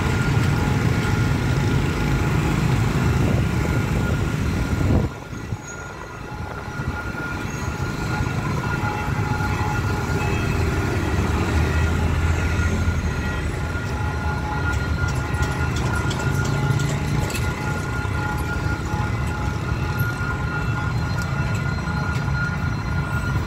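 Motorbike and road traffic running past, with a steady rumble and a thin, steady high-pitched tone throughout. The sound drops off abruptly about five seconds in, then builds back up.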